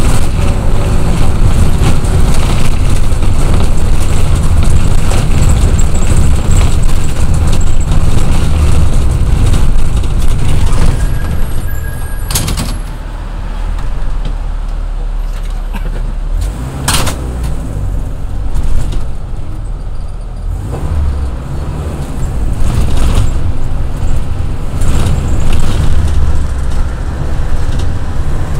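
Minibus cabin noise heard from inside: engine and road noise loud and steady at first, easing off about twelve seconds in as the bus slows, with two sharp clicks, then building again over the last several seconds.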